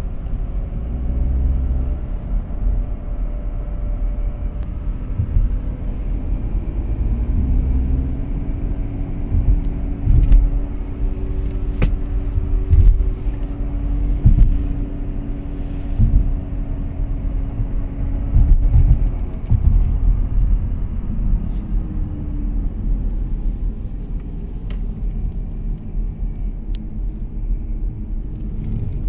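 Audi A4 B8 Avant driving with a broken wheel bearing, a drone over heavy road rumble. The drone rises in pitch about eight seconds in and falls again near the end, with occasional knocks.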